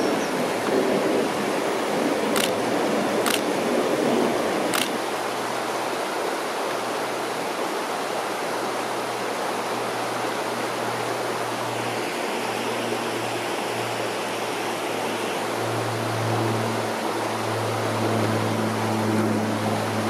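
Shallow river water rushing steadily over rocks. There are a few sharp clicks in the first five seconds, and a low steady hum comes in about five seconds in and grows louder near the end.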